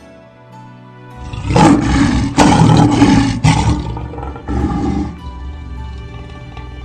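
Lion roaring: a long roar starting about a second in, then a shorter second roar around the fifth second, over soft background music.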